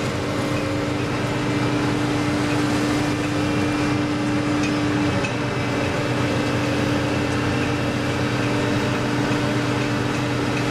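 Crane's engine and hydraulic machinery running with a steady hum, heard from inside the operator's cab. Its main tone breaks off briefly about five seconds in, then continues.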